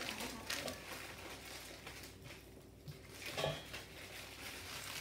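Rustling and crinkling of a fabric Halloween treat bag and the candy wrappers inside as it is rummaged through, with scattered light clicks and taps and one brief louder noise about three and a half seconds in.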